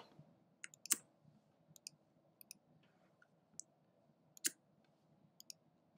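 About ten faint, scattered clicks of a computer being worked, with the loudest about a second in and again about halfway through.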